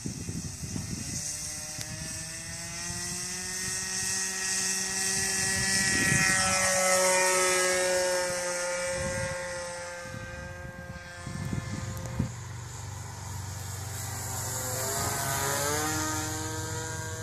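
Radio-controlled model airplane's motor and propeller throttling up for a takeoff from grass, the pitch rising in the first couple of seconds. The plane then flies past, and its pitch slides down as it goes by, twice. Wind buffets the microphone at the start.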